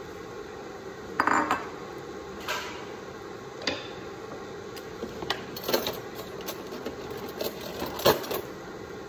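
Scattered clinks and knocks of kitchen utensils and containers being handled, the loudest about a second in and again near the end, over a steady hiss from the simmering pan.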